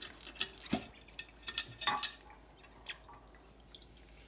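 A glass clip-top jar being opened: a run of sharp clicks and clinks from the glass lid and metal wire clasp in the first two seconds, then a couple of softer knocks.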